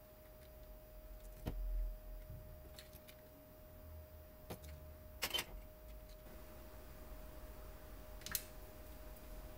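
Faint, scattered clicks and taps of tweezers and a soldering iron handled against a circuit board: one about a second and a half in, a quick double click a little past five seconds, and another near eight seconds, over a faint steady hum.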